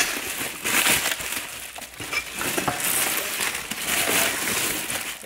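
Plastic bubble-wrap packaging rustling and crinkling as hands pull it open.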